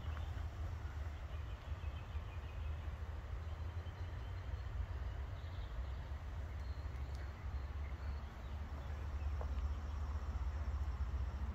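Outdoor ambience: a steady low rumble with faint high chirps and a few light clicks scattered through it.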